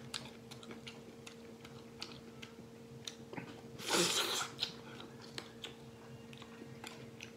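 Close-up eating sounds of braised duck wings being gnawed and chewed: many small wet clicks and smacks from the skin and bones, with a louder sucking slurp about four seconds in.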